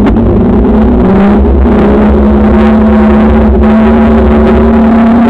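Riding noise of a bicycle picked up by a camera mounted on it: wind buffeting the microphone with a heavy low rumble, tyre rolling noise on asphalt, and a steady droning hum that rises a little about a second in.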